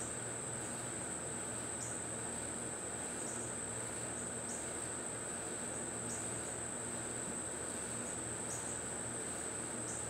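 Insects trilling: one continuous high-pitched, steady trill, with short falling chirps every second or two, over a steady low background hiss.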